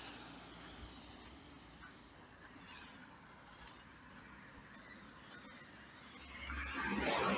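A car passing on a wet, slushy road: the tyre hiss builds over the last couple of seconds and peaks near the end as it goes by. A thin, high, steady whine is heard with it, loudest as the car passes.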